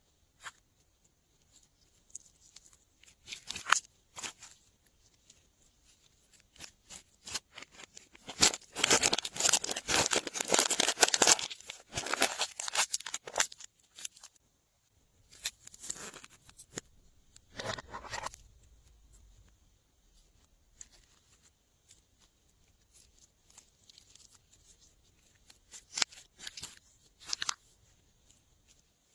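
Glossy slime being worked by hand, making irregular sticky clicks and crackles, with a dense, louder run of them for several seconds in the middle and scattered quieter clicks around it.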